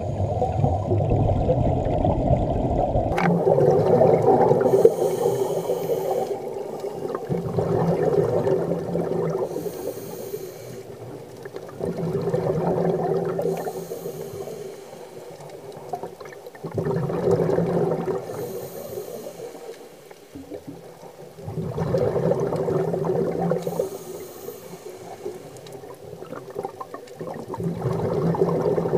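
Underwater recording of a scuba diver breathing through a regulator: loud bursts of exhaled bubbles about every four to five seconds, with a short high regulator hiss between them. A low rumble cuts off suddenly about three seconds in.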